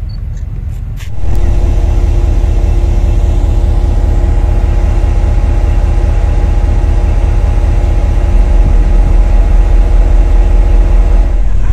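A heavy engine running steadily with a deep rumble and a steady hum, which jumps suddenly louder about a second in and then holds.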